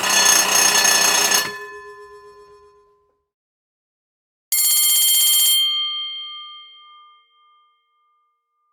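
School bell ringing in two short bursts, each about a second or so of rapid ringing that cuts off and leaves the bell humming as it dies away. The second burst comes about four seconds after the first and rings higher.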